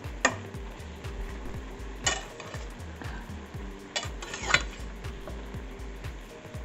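Spatula stirring stir-fried bok choy and peppers in a stainless steel frying pan, the vegetables sizzling. Four sharp clinks of the spatula against the pan: one just after the start, one about two seconds in, and two close together around four seconds in.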